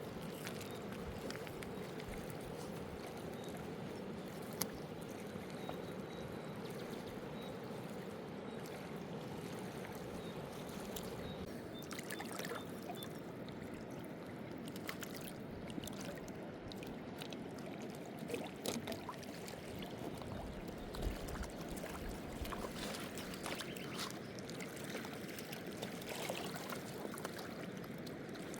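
River water flowing and lapping in a steady wash, with scattered small knocks and clicks.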